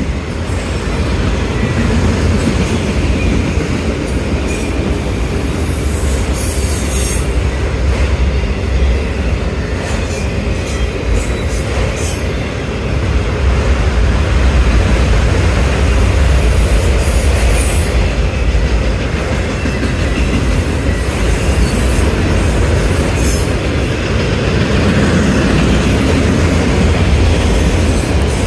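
Freight train of autorack cars passing close by at speed: a loud, steady rumble of steel wheels on rail, with short high-pitched wheel squeals a few times.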